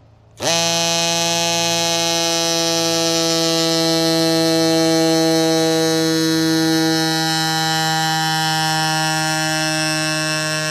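Rock Bros AS1 Pro mini battery electric air pump switching on about half a second in, its pitch sweeping up briefly, then running with a steady loud buzz. It is pumping air into a 50mm tubeless gravel tyre to seat the bead.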